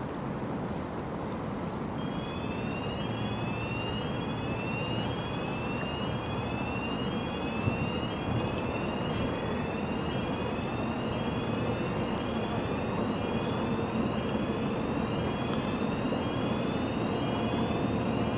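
Electronic warning siren sounding a repeating rising chirp, about two a second, starting a couple of seconds in, over a steady rumble of wind and a ship's engine.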